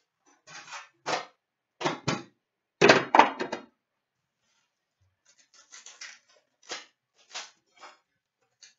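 Handling of trading card packs and their metal tin: a run of short scrapes and knocks as the tin is emptied and packs are set down on a glass counter, loudest about three seconds in. After a brief pause, lighter rustles and clicks as a foil pack is handled.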